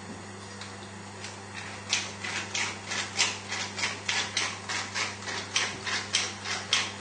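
Pepper mill twisted by hand, grinding pepper onto a steak in a quick, even run of crackling clicks, about four a second, starting about two seconds in.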